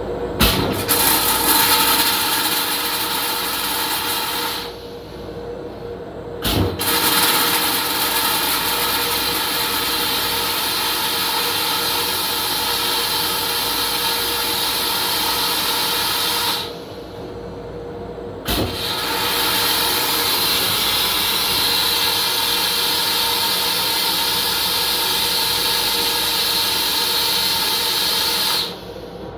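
A Metro-North M7 railcar toilet running its flush cycle: a loud motor-and-water noise runs in three stretches of several seconds. Each restart comes after a short pause and a sharp click.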